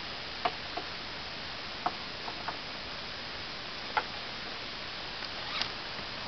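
Light metal clicks and clinks of a ratchet strap's hook and buckle being fitted under a car's front bumper, several scattered sharp ticks with the loudest about four seconds in, over a steady hiss.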